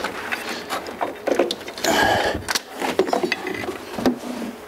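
Hands working a rubber CVT drive belt off and over the side-by-side's clutch sheaves, which are held apart by a wedged screwdriver: rubbing and scuffing with scattered knocks and clicks, and a longer rub about two seconds in.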